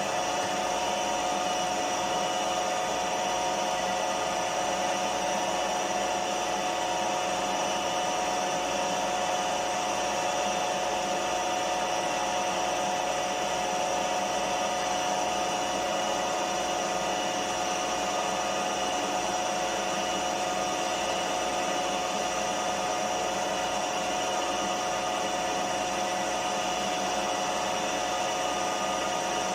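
Milling machine spindle and motor running steadily, spinning an edge finder, a constant hum with a steady whine over it.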